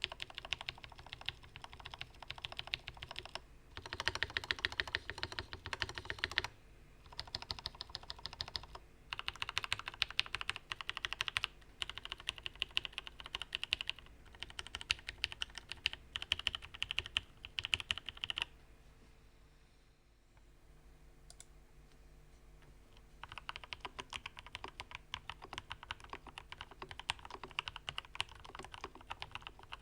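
Typing on a Ramaworks Kara mechanical keyboard with lubed and filmed switches: runs of rapid keystrokes broken by short pauses, with a longer pause of a few seconds past the middle before the typing starts again.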